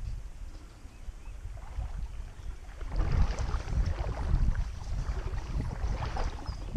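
Wind buffeting the microphone over moving creek water, with the water splashing and sloshing more busily from about three seconds in.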